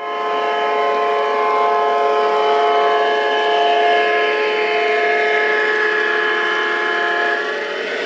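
Diesel locomotive horn sounding a multi-note chord in one long, steady blast.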